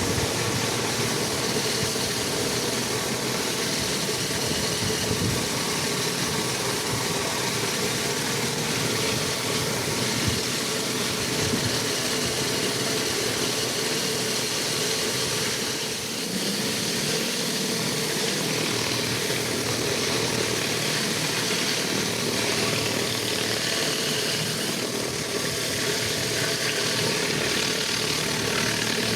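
Pressure washer's engine running steadily, with a constant hiss of water spray over it.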